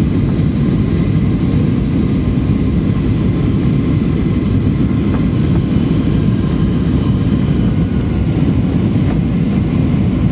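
Jet airliner's engines and airflow: a steady, loud, low rumble that does not change.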